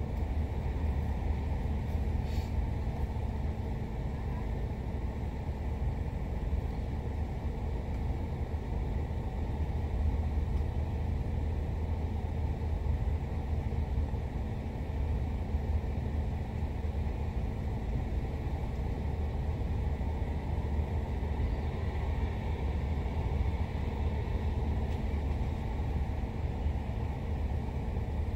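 Car engine idling steadily, a low rumble heard from inside the cabin with the driver's window open.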